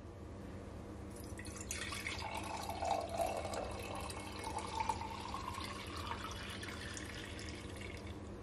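Cucumber juice poured from a jug into a glass jar: a steady stream splashing into the liquid as the jar fills, starting about two seconds in.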